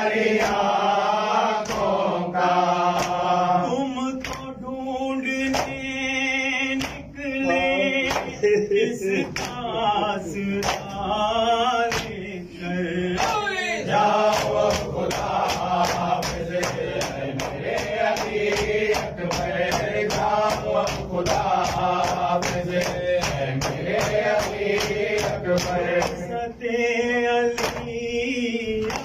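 Men chanting an Urdu noha lament, a male lead voice with the group joining in. Under it runs a steady rhythm of sharp slaps from open hands striking chests in matam, about two strikes a second.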